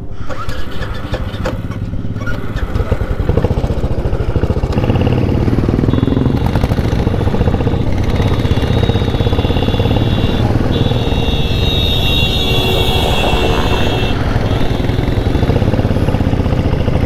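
Royal Enfield Bullet's single-cylinder engine running as the motorcycle rides along, heard from the rider's seat; it gets louder about three seconds in and then holds steady.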